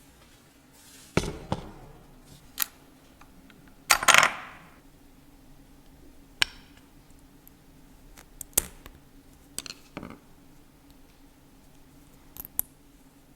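Metal tools and engine parts being handled during a timing chain replacement: scattered sharp clicks and clinks, the loudest a short metallic clatter about four seconds in, over a faint steady hum.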